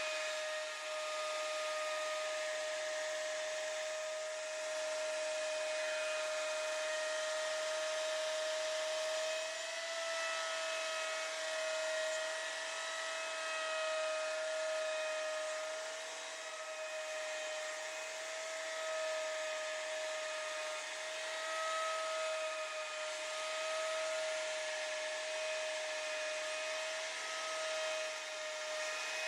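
Electric wood router running at speed: a steady high motor whine over a wide hiss, its pitch and loudness wavering slightly.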